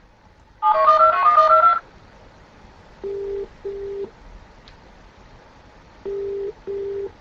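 Telephone touch-tone (DTMF) dialing: a fast run of about a dozen beeps as a phone number is dialed. Then the ringback tone of the outgoing call, two short rings twice: the number is ringing and has not yet been answered.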